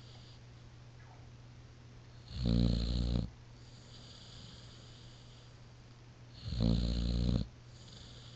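A sleeping dog snoring loudly, two deep rattling snores about four seconds apart, each followed by a softer breathy hiss, much like a man's snoring.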